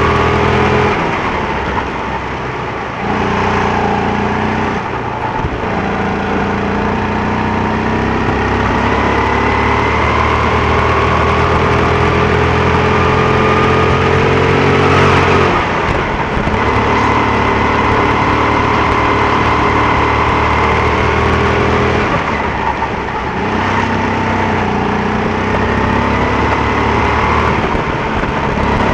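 Go-kart engine running hard, its pitch climbing slowly under throttle and dropping briefly four times as the throttle is lifted for corners.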